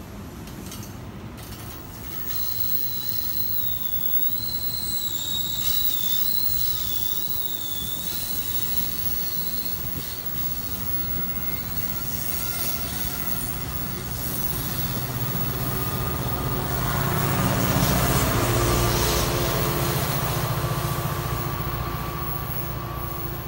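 New Jersey Transit bi-level commuter train rolling past on a curve, its wheels squealing with a high, wavering tone during the first part. The diesel locomotive pushing at the rear then passes, its engine and rumble growing louder to a peak a few seconds before the end and then fading.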